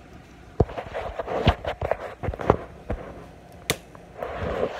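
Handling noise: a run of irregular knocks and clicks, then one sharp click about three and a half seconds in and a short rustle near the end, as the phone is moved about.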